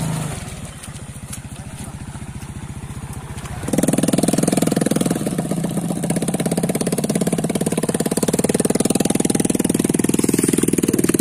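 Small motorcycle engine running with a rapid, even putter. About three and a half seconds in, the sound jumps abruptly to a louder, closer engine.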